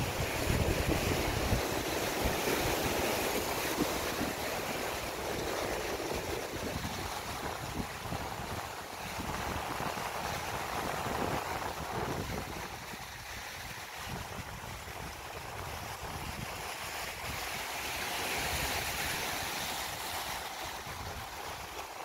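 Sea waves washing against shoreline rocks: a steady rushing surf that swells and eases slowly. Wind buffets the microphone with a low rumble in the first second or two.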